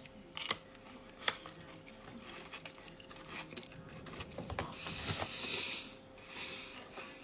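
Close-up eating sounds: a couple of sharp clicks, then crunchy biting and chewing in the second half.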